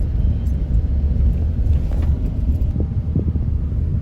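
Steady low rumble of a vehicle driving, with a few faint knocks or rattles about three seconds in.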